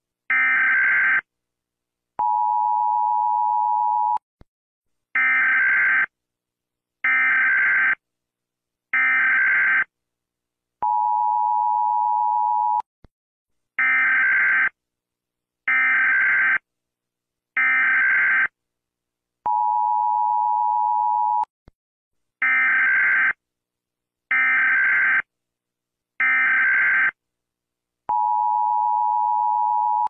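US Emergency Alert System alert tones: groups of three one-second bursts of data tones, each group followed by about two seconds of a steady two-note attention tone, repeating in a loop.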